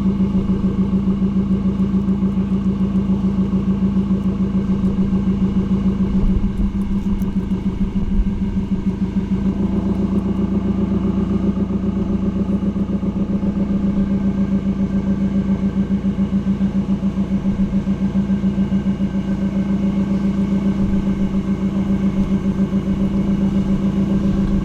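2015 Subaru WRX's turbocharged 2.0-litre FA20 flat-four idling steadily through a Tomei unequal-length header, with an even, rhythmic pulse to the exhaust note.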